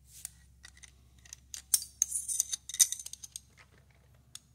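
A flurry of light metallic clicks and rattles, as small metal parts or chips are handled around a machine vise. They are densest and loudest in the middle and thin out to a last click near the end.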